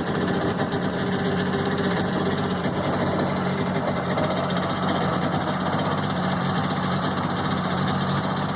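Boat engine running steadily at low speed, its pitch and loudness unchanging.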